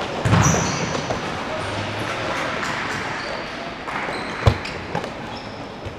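Futsal ball being kicked and bouncing on an indoor court during play, with a sharp single kick about four and a half seconds in and a few lighter knocks. The hits echo in a large sports hall, and there are short high squeaks among them.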